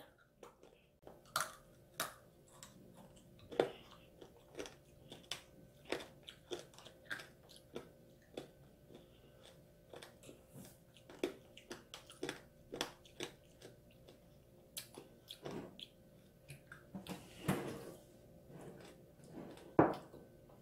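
Close-up chewing of tanghulu, strawberries and orange segments in a hard candied-sugar shell: irregular crisp crunches and clicks as the brittle coating is bitten and chewed. There is a louder single knock near the end.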